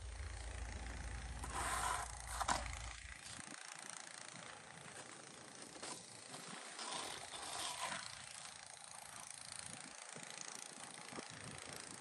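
Snow shovel blade scraping along a paved driveway in repeated pushes, with a sharp knock about two and a half seconds in. Wind rumbles on the microphone for the first few seconds.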